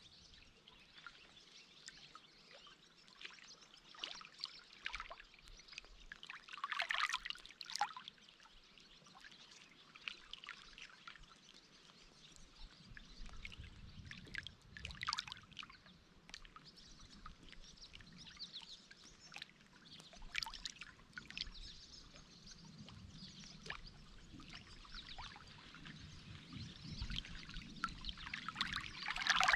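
Faint footsteps crunching unevenly on a forest trail, one after another at no fixed pace. A low rumble comes in about halfway and grows toward the end.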